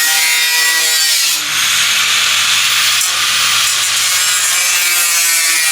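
A power tool cutting sheet-metal roofing: a steady, loud rasping hiss with a whine that shifts in pitch, dipping briefly about a second and a half in.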